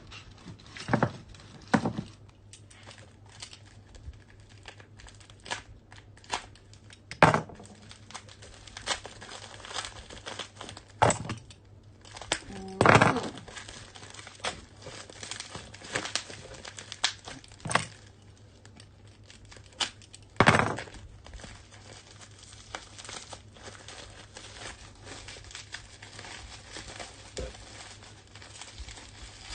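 Plastic and paper packaging being crinkled and torn open by hand while unwrapping a parcel, in irregular rustles with several louder crinkling bursts, the loudest about 13 and 20 seconds in, and a faint steady hum underneath.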